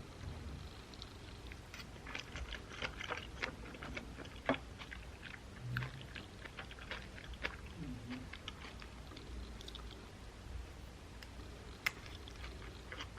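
Close-up eating sounds: chewing, with many irregular small clicks and taps and a sharper click near the end.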